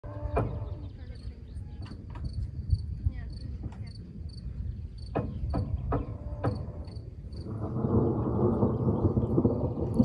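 An insect chirping steadily, about two chirps a second, over a low rumble with scattered sharp clicks; a steady rushing noise comes in about seven seconds in.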